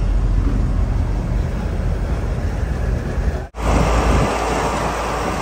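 Lorry on the move: a steady, heavy engine rumble with road noise. About three and a half seconds in it cuts out for an instant and comes back hissier.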